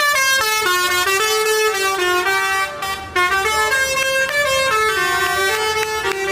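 Basuri telolet multi-tone bus horn playing a tune: a run of loud horn notes stepping up and down in pitch, with a brief break about three seconds in.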